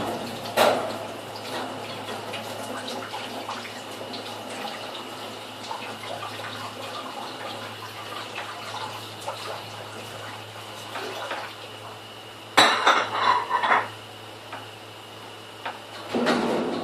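Dishes being washed by hand at a kitchen sink: a steady wash of water with scattered clinks of crockery and cutlery, and a louder clatter of dishes about two-thirds of the way in and again near the end.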